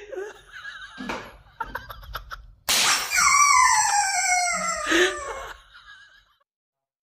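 A loud whistling tone that starts suddenly and slides steadily down in pitch over about two seconds, then fades, after a few quieter clicks and a short wavering tone.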